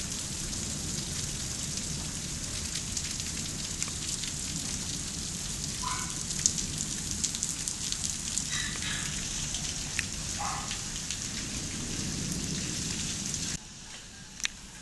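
Hailstorm: hailstones falling in a steady hiss thick with sharp clicks of stones striking. It cuts off abruptly near the end, leaving a much quieter background with one sharp knock.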